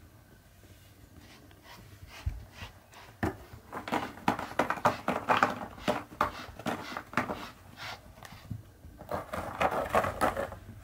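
Grooming brush stroking through a cat's fur: a rapid series of short brushing strokes, busiest through the middle and again near the end.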